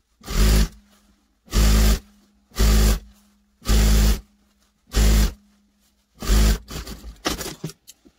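SunStar industrial lockstitch sewing machine stitching a rolled skirt hem in six short runs about a second apart, with a low motor hum between runs. Near the end the fabric rustles as it is handled.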